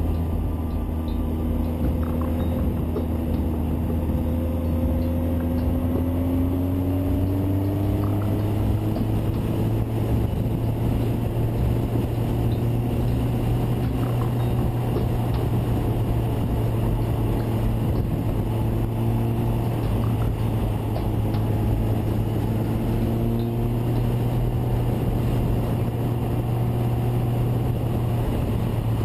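Suzuki Bandit's inline-four engine running at a steady cruise under a constant rush of wind noise on the camera microphone. The engine pitch climbs gently twice as it picks up speed.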